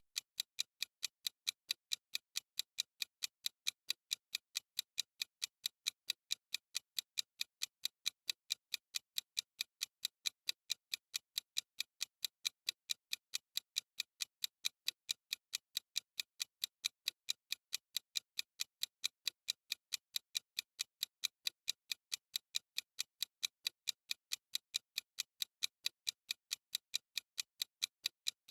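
Timer's ticking sound effect: sharp, clock-like ticks at a quick, perfectly even rate, steady throughout.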